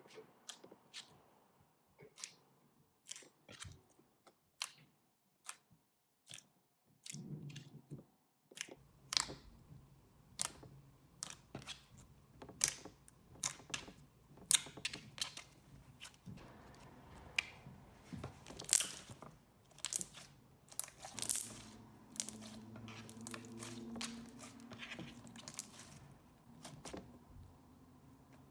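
Thick jelly slime being squished and stretched by hand, with sharp, irregular clicks and small pops as air bubbles in it burst. The pops are sparse at first and come thick and fast from about nine seconds in.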